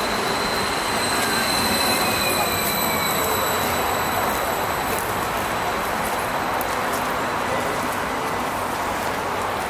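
NSB class 75 Flirt electric multiple unit pulling out of the station, running with a steady rolling rumble and a steady high whine.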